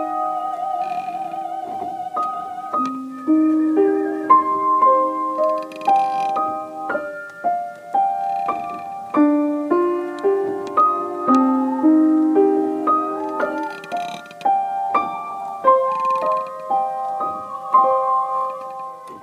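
Home recording of a solo piano practising a slow piece of separate, held notes. A woman's operatic singing, wavering with vibrato, comes in faintly from another room near the start.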